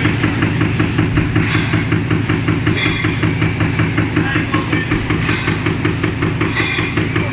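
Roll-fed paper cup blank die punching machine running: a fast, even clatter of punching strokes, about six a second, over a steady motor hum, with a brief higher noise every second or so.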